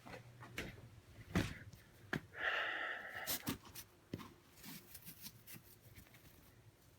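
Quiet handling noises from unpacking a motorcycle helmet: a few light taps and knocks, and a short rushing sound a little over two seconds in.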